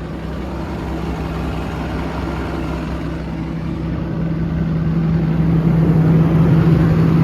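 Cummins diesel engine of an XCMG XE210CU excavator running steadily, with a strong steady hum that grows louder over the last few seconds.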